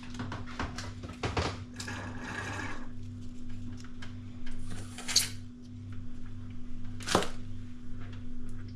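Clicks and knocks of a drain-unblocking kit being handled at a fridge, with a short rushing sound about two seconds in and a sharper knock near the end, over a steady low hum.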